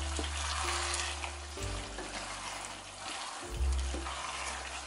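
Chicken pieces in red glutinous wine lees sizzling wetly as they are stirred in a pot, under background music with held bass notes that change every second or two.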